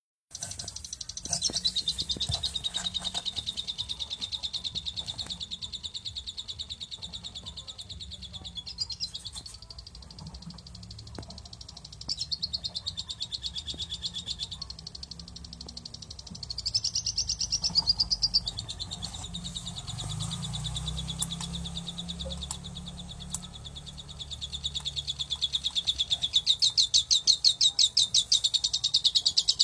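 Pet parrots giving rapid, rhythmic high-pitched chirping calls in long runs, loudest near the end: repeated begging calls at feeding time.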